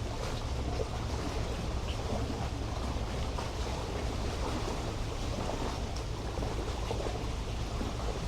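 Small waves lapping and splashing at the shore of a sea bay, over a steady low rumble.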